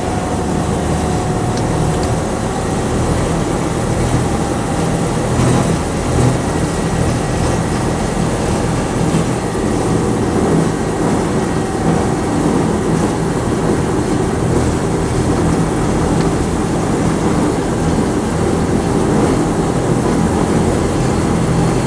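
Amphibious Duck tour boat's engine running steadily as the boat motors along the river, with water rushing along the hull.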